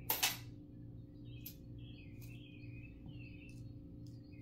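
Copper pennies clinking as they are handled, with a sharp clatter just after the start and a few lighter clicks later. Birds chirp faintly throughout, over a steady low hum.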